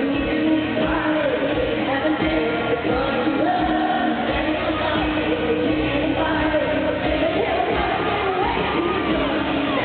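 Live country-pop band with a woman singing the lead over a steady drum beat, sounding through a large arena.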